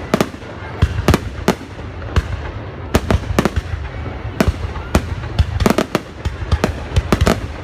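Fireworks going off in quick, irregular succession: many sharp cracks and bangs, a few every second, over a continuous low rumble.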